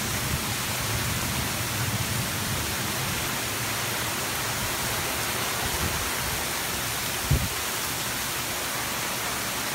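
Heavy downpour of rain, a steady hiss of rain pouring down and splashing on pavement and cars. A single brief low thump about seven seconds in.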